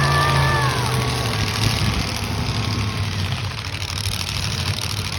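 Demolition derby car engines running. A steady low engine hum in the first two seconds gives way to rougher noise.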